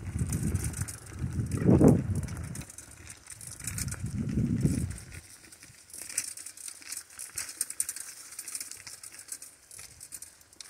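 Bicycle ride on a dirt forest trail: wind buffets the microphone in low gusts through the first half, swelling twice, then dies away about halfway. A light, busy crackle and rattle of the tyres and bike on the trail is left.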